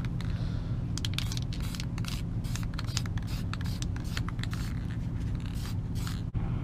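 Aerosol can of chrome spray paint hissing in many short bursts as paint is sprayed onto a masked wheel rim.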